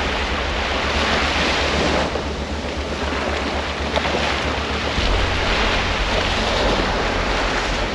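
Small surf breaking and washing up on a sand beach, a steady wash of water, with wind rumbling on the microphone.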